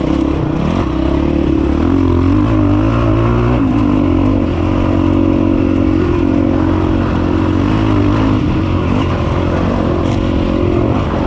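The 2006 Honda CRF450X's four-stroke engine running under load as the dirt bike is ridden hard, its note rising and falling with the throttle.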